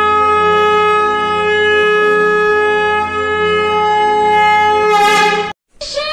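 Conch shell (shankha) blown in one long, steady, unbroken note, which cuts off suddenly near the end. After a moment's silence, a new sound with a rising sweep starts.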